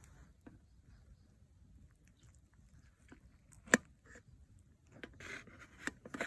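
Quiet handling sounds: one sharp click a little under four seconds in, then a brief scrape and a few lighter clicks near the end.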